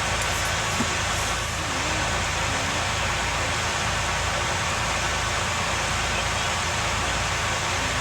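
Steady, unbroken running noise of a vehicle, a low engine rumble under an even hiss.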